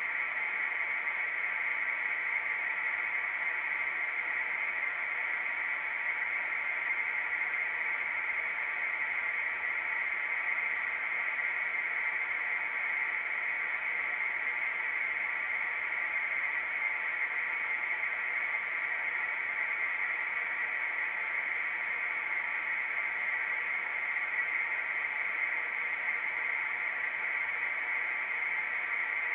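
Steady, unchanging static hiss, strongest in the upper-middle range, like a radio's static.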